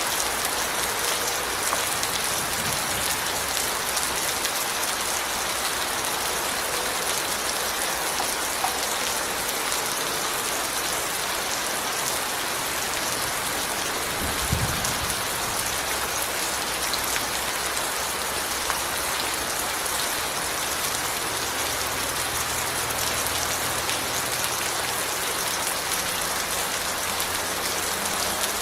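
Steady rain falling, a dense even hiss of many drops hitting surfaces. A brief low thump comes about halfway through.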